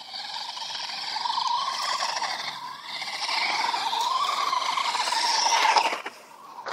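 A radio-controlled truck's motor whines as the truck drives. Its pitch rises and falls twice and it grows louder, peaking near the end before it cuts off suddenly.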